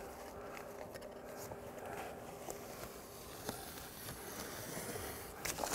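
Faint handling of a strip of self-adhered Blue Skin membrane and a utility knife, over a low steady hum, with a few light clicks near the end.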